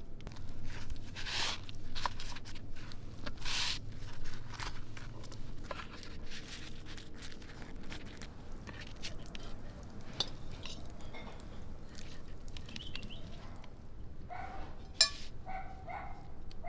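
A metal spoon scraping and clinking in a bowl of potato filling, then the soft handling and crinkle of thin samosa pastry being folded by hand. Near the end come a few short pitched calls and one sharp click, the loudest sound.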